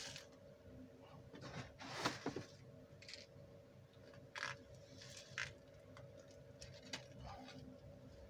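Loose bonsai substrate poured in several short spills from a small plastic cup into a cut plastic water bottle, the grains pattering and rustling against the plastic. A faint steady hum lies underneath.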